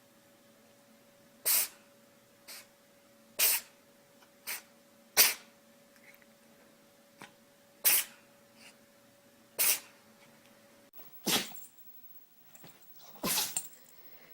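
A pet sneezing over and over: about nine short, sharp sneezes a second or two apart, over a faint steady hum that stops about eleven seconds in.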